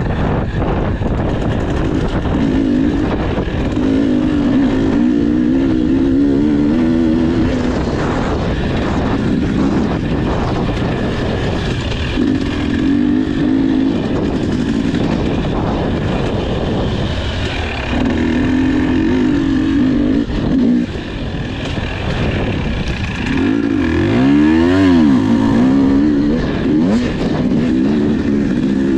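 Enduro motorcycle engine running hard, its revs rising and falling repeatedly as the throttle opens and shuts, with one sharp drop and rise in pitch near the end.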